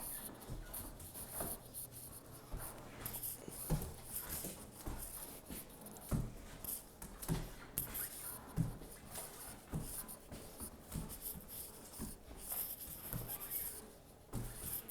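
A puppy scrambling and scuffling during flirt-pole play, giving irregular soft thumps and scrapes of paws and lure on hard ground.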